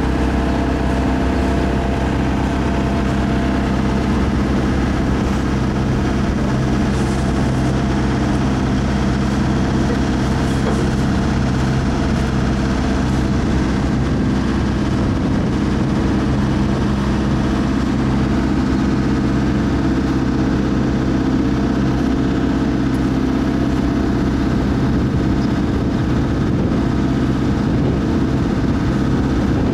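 Dive boat's engine running steadily at a low, even pitch, heard from on deck.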